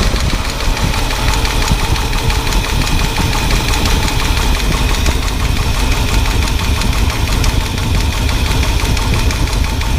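Ford 460 big-block V8 running steadily just after starting, with its valve cover off and a constant fast ticking from the exposed valvetrain. It is misfiring on one cylinder, which is traced to a bent pushrod and a cam lobe worn flat.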